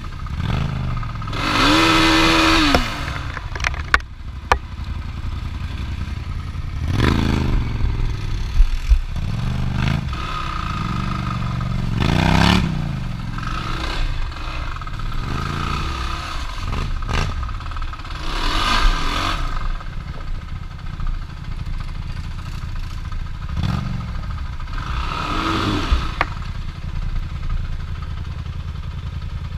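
Off-road vehicle engines running steadily and revving up and back down about eight times, with a few sharp knocks.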